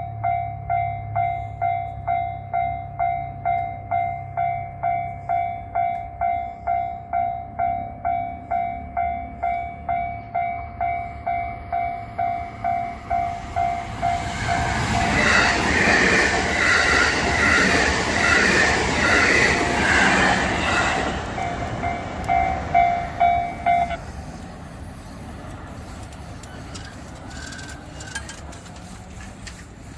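Japanese railway level-crossing warning bell ringing about twice a second while a JR Kobe Line train passes over the crossing. The train's wheel and rail noise swells for about seven seconds in the middle, with a rhythmic clatter. The bell stops a few seconds after the train has gone.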